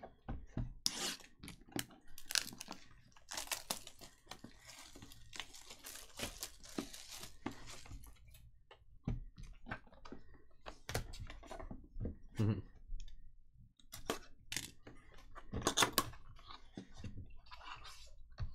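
Plastic shrink-wrap crinkling and tearing as it is slit with a box cutter and pulled off a cardboard box, with scattered taps and scrapes of the box being handled.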